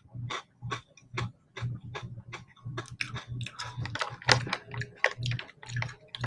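Crunchy Bingo Mad Angles triangle chips being chewed close to the microphone: a steady run of crisp crunches, about two to three a second.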